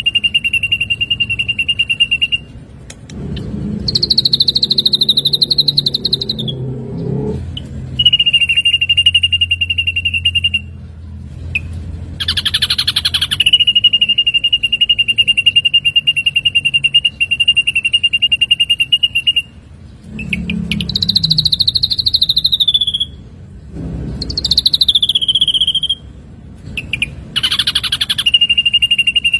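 Ashy drongo singing: long, rapid trills held on one high pitch for several seconds, alternating with shorter phrases that slide downward, with a low rumble under the song a few seconds in and again past the middle.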